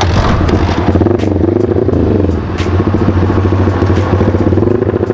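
Yamaha Vixion single-cylinder four-stroke engine, bored up to 200cc, running as the bike rides off, its note rising and falling slightly with the throttle.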